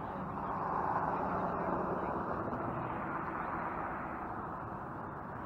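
Road traffic noise, a steady hiss that swells as a car passes about a second in and then slowly fades.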